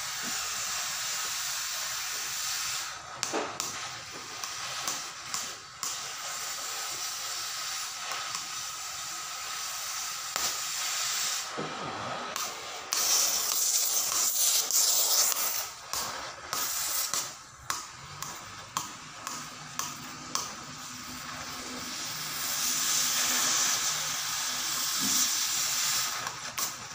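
Oxy-fuel cutting torch hissing as it cuts the worn bushing out of an excavator bucket's pin boss. The hiss is steady, with short breaks and two louder stretches, one around halfway and one near the end.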